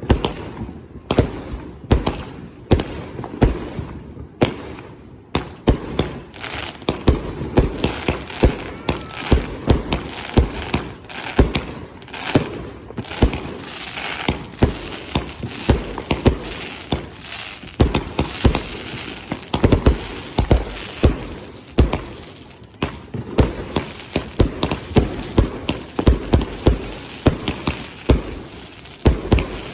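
Consumer firework cake firing a rapid string of aerial shots, several bangs a second, with a crackling hiss filling in between them from about the middle on.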